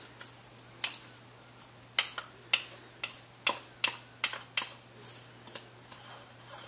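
Sharp, irregular clicks and taps of a utensil, about a dozen over five seconds, as peanut butter is scooped and knocked into the pot.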